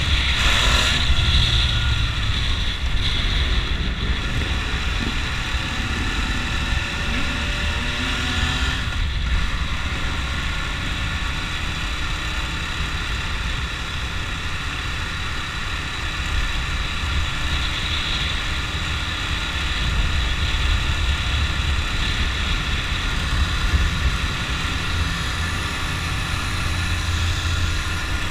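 Motorcycle engine running steadily while cruising, with wind and road noise. Another engine passes about eight to nine seconds in.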